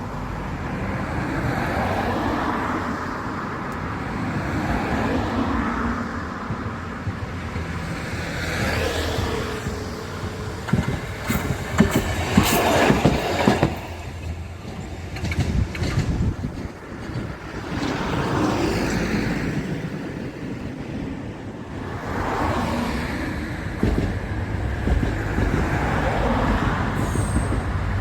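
Road vehicles passing one after another, with a run of sharp clicks and rattles about halfway through. Near the end the low rumble of a JR diesel railcar, the Nanohana, builds as it draws near.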